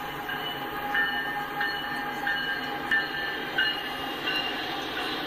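CSX freight train passing over a grade crossing: a steady rumble from the train, with a short high ringing tone and a small peak in loudness about every two-thirds of a second.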